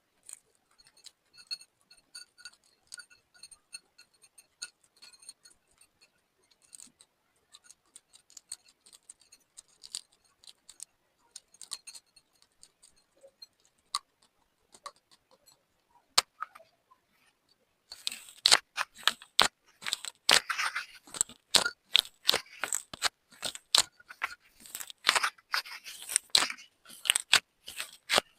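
Slime being handled and mixed, giving faint scattered clicks and then, about two-thirds of the way in, much louder, rapid sticky crackling and popping.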